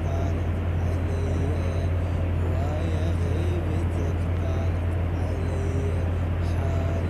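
A steady low hum or rumble, with faint wavering voice-like tones drifting over it.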